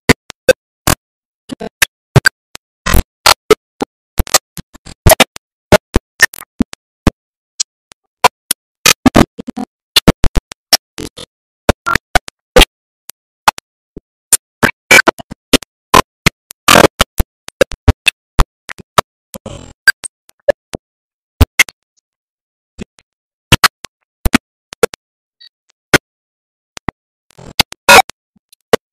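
Broken-up audio: irregular short bursts and clicks cutting in and out, with dead silence between them, like a glitching or corrupted sound signal.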